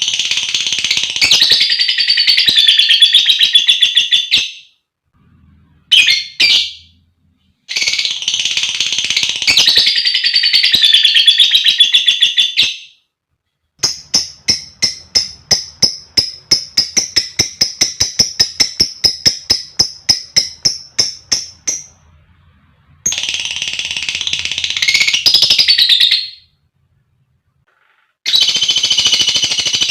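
Female lovebird calling in loud, shrill chattering trills that come in bursts of a few seconds with short pauses between. In the middle comes a stretch of about eight seconds of rapid, evenly repeated sharp chips over a steady high whistle.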